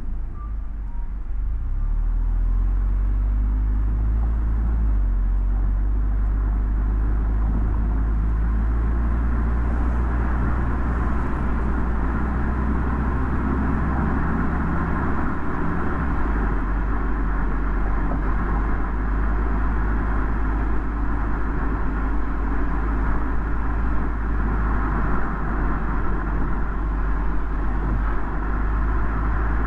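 Car driving on a road: a steady low rumble of engine and tyre noise, the deep drone shifting a little about halfway through.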